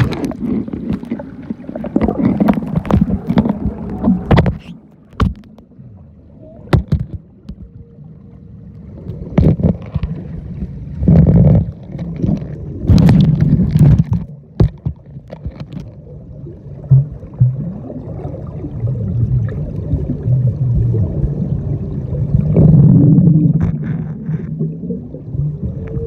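Water heard through a phone microphone sealed in a waterproof case held underwater: a muffled, low, rumbling wash that swells and fades, with scattered sharp knocks and clicks as the case is moved about.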